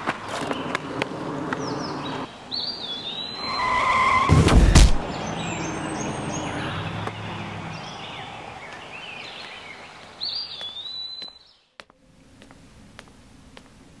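A car running and closing in, a short steady squeal building over about a second, then one very loud crash about five seconds in: the car striking a person. Birds chirp around it, and the sound drops away suddenly near the end.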